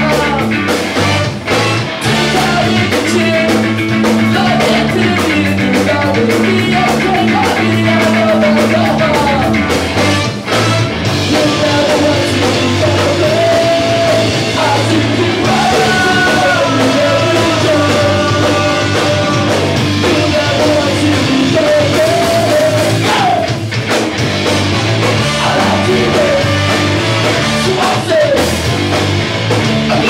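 Live ska band playing loud: a horn section of trumpet, saxophone and trombones over electric guitar, bass guitar and drum kit.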